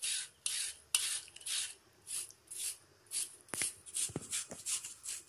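Boiled potato being grated by hand on a flat stainless-steel grater, a rasping stroke about twice a second.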